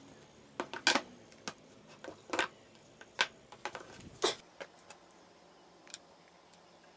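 Plastic quick-release bar clamps and plywood pieces handled on a workbench: a dozen or so sharp clicks and knocks, irregularly spaced and loudest in the first half, then a single light tap near the end.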